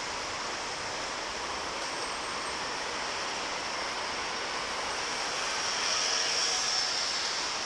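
Steady noise of heavy, congested city road traffic heard from above, swelling a little for a couple of seconds near the end.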